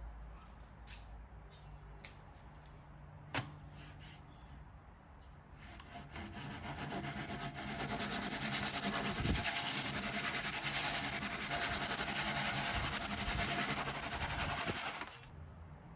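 Suizan ryoba Japanese pull saw cutting through wood in a steady run of rapid strokes for about nine seconds, starting around six seconds in and stopping abruptly near the end. A single sharp click comes earlier, about three seconds in.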